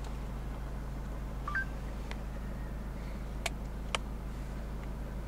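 A steady low drone, with a short two-note beep, stepping up in pitch, about a second and a half in, and a few sharp clicks, the loudest two close together near the four-second mark.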